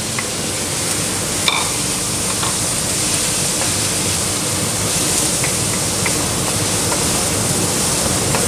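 Chopped red onions sizzling steadily in hot oil with garlic-ginger paste, stirred with a wooden spatula in a nonstick wok, with light scrapes and one sharper knock about a second and a half in.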